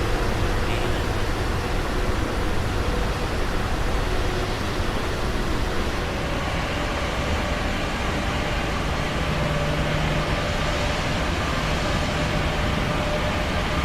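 Steady rushing noise of an aircraft in flight, heard from inside the cabin. A faint low hum joins about nine seconds in.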